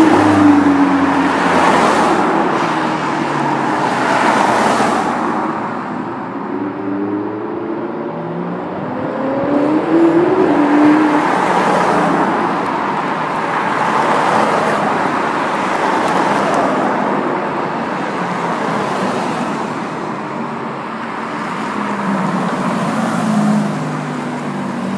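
Ferrari sports cars driving past one after another, their engines rising in pitch as they accelerate about ten seconds in. A yellow Ferrari 458 Spider's V8 comes close near the end.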